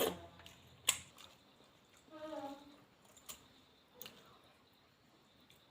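Eating sounds close to the microphone: a few sharp clicks and smacks of someone eating dal and rice. A short pitched hum or call comes about two seconds in.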